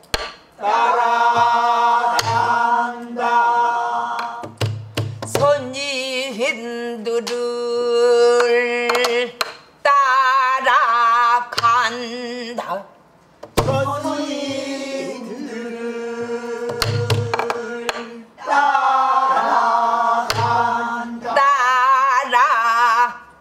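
Pansori singing: a woman's voice drawing out long, slowly bending notes with wide vibrato, broken by short breaths. Sparse strokes on a sori-buk barrel drum played with a stick, low thumps on the head and sharp knocks, keep the beat under the voice.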